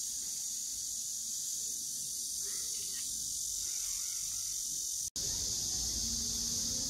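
Steady high-pitched drone of summer insects in the trees. It breaks off for an instant about five seconds in, after which a low rumble joins it.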